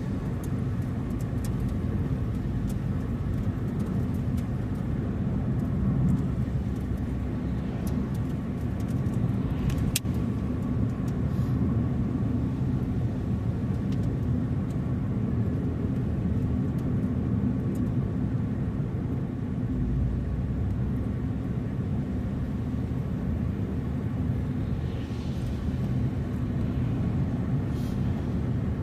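A car driving at a steady speed: an even, low engine and road rumble, with a few faint ticks.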